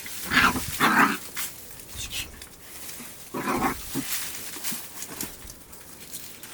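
Three short, loud animal calls: two in quick succession near the start and a third, slightly longer, about three and a half seconds in.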